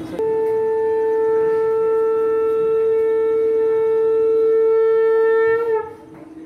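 A conch shell (shankha) blown in one long, steady blast of about five and a half seconds. The pitch dips as it cuts off near the end.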